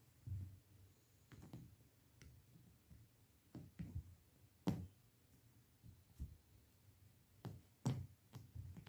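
Kittens wrestling with their mother cat against a cloth-covered sofa and floor: quiet, irregular soft thumps and scuffs, with a few sharper clicks, the loudest about halfway through and again near the end.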